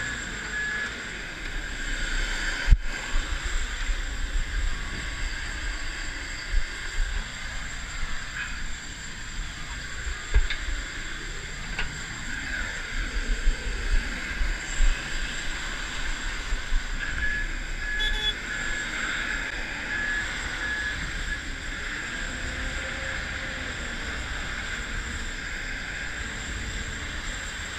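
Dubbed airport ramp ambience: a steady jet engine whine over a low rumble, with scattered thumps and a short run of high beeps about two-thirds of the way through.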